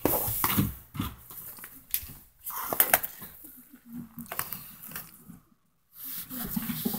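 Handling noise from a handheld camera being swung about: irregular clicks, knocks and rustling, loudest in the first second, with a short hush a little past the middle.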